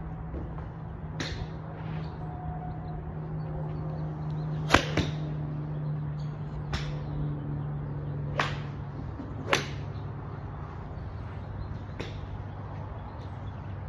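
Iron club striking a golf ball off an artificial turf mat: one sharp crack about five seconds in, the loudest sound. Several fainter sharp clicks come at intervals, over a steady low hum.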